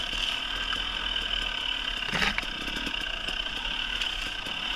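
KTM 300 EXC two-stroke single-cylinder dirt bike engine running steadily at a trail-riding pace, with a brief knock about two seconds in.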